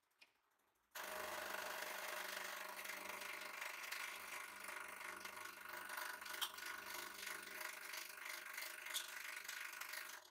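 Hydraulic press pump motor starts suddenly about a second in and runs steadily as the ram drives a pointed punch down into a plastic pipe. A couple of sharp cracks come through as the pipe splits.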